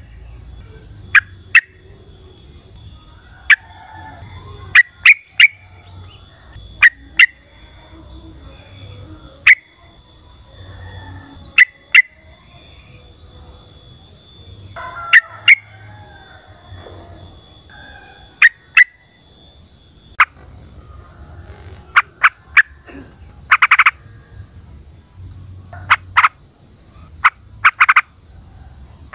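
Yellow-vented bulbul (trucukan) calling: short, sharp notes in quick clusters every second or two. Beneath them runs a steady background of insects, one pulsing trill and one continuous high buzz.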